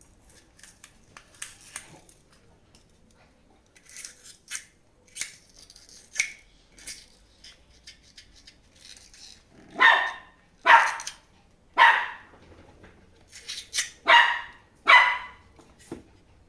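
A dog barking: about six sharp barks in quick succession in the second half, after a few faint clicks of handling.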